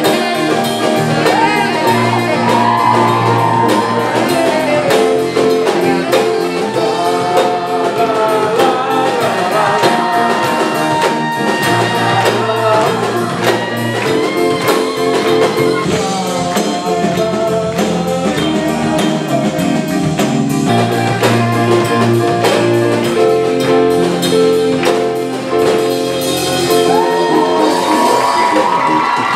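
A live band of saxophone, electric guitar, drum kit and keyboard playing a song, with a melody line over held keyboard chords and a steady drum beat.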